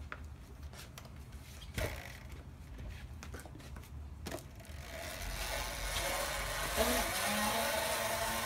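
Razor E-175 electric scooter being ridden off: a few light clicks as it is kicked off, then about halfway through the motor engages and a steady whir sets in and grows louder, with a low hum joining near the end.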